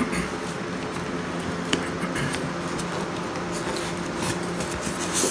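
Cardboard box and packing material being handled during unboxing: scattered light rustles and taps over a steady low hum.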